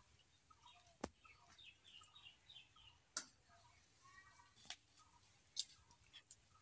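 Faint birds chirping in short repeated calls, with four sharp clicks scattered through.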